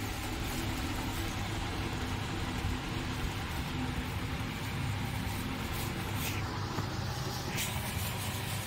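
Steady low mechanical hum under a noisy hiss, with two short hissy swells about six and a half and seven and a half seconds in.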